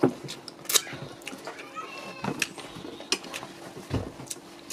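Eating by hand, close to the microphone: scattered wet clicks and smacks of lips and fingers as fufu dipped in egusi soup is eaten and the fingers are licked, over a faint steady low hum.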